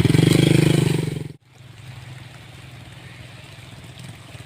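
A motor engine running loudly close by with a rapid pulsing rhythm, cut off abruptly about a second and a half in, after which a quieter steady engine hum continues.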